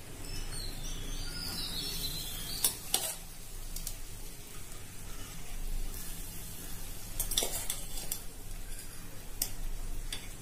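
Cooked rice being spooned into a pan of hot lemon-juice and oil tempering, with a faint sizzle and a metal spoon knocking against the pan a few times.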